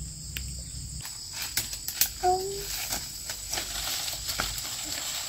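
Insects droning with a steady high-pitched tone, over scattered sharp clicks and snaps from movement through forest undergrowth. A short voice-like sound comes just after two seconds in.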